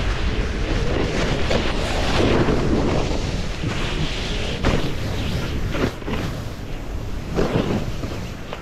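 Snowboard sliding and carving through soft, chopped-up snow, with wind buffeting the microphone as a deep rumble. Short scraping rushes come through with the turns, a few sharper ones past the middle.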